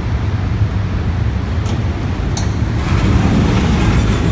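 Passenger lift running with a steady low rumble; the lift doors slide open near the end.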